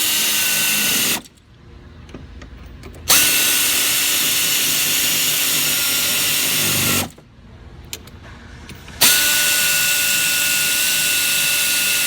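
Power drill driving screws, running in three long stretches with a high steady whine and cutting off twice for about two seconds each.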